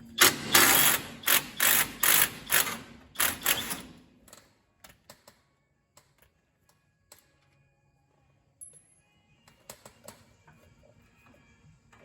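A socket tool spinning the nut off the old front shock's mounting bolt: a rapid run of mechanical clattering bursts for about four seconds, then it stops, leaving only a few scattered clicks.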